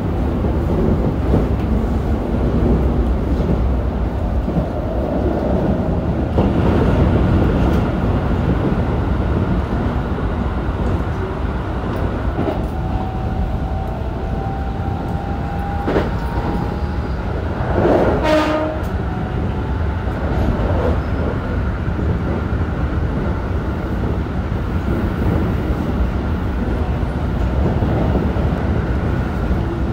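Keikyu 1000-series electric train with Toshiba IGBT-VVVF traction running along the line, heard from inside the car: a steady rumble of wheels on rail. A short horn blast sounds once about eighteen seconds in.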